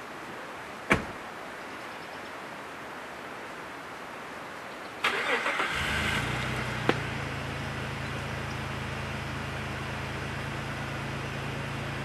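A car door slams shut once. A few seconds later a Jeep SUV's engine is cranked by the starter, catches within about a second, and settles into a steady idle.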